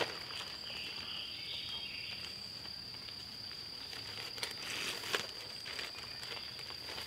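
Scissors cutting along the crease of a thin black plastic 55-gallon bin liner: soft crinkling of the plastic with a couple of sharper snips about two-thirds of the way through. A steady high-pitched insect drone sounds behind it.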